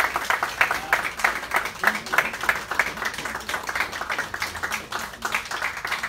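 A group of people applauding, many hands clapping steadily.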